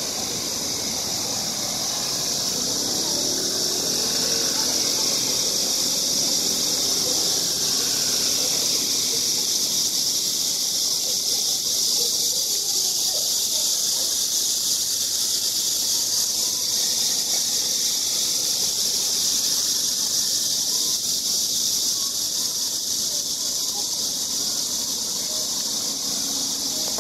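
A steady high hiss over faint, indistinct background voices.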